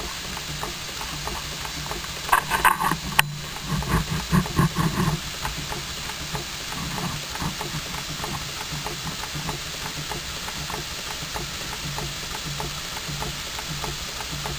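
Model twin-cylinder overcrank engine running on compressed air, ticking over with a rapid, even ticking of exhaust beats and valve gear over a light hiss. A brief louder clatter of knocks comes about two to five seconds in.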